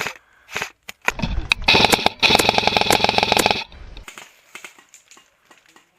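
Airsoft electric gun firing on full auto: a rapid, buzzing rattle of shots in two bursts, starting about a second in and stopping a little after three and a half seconds.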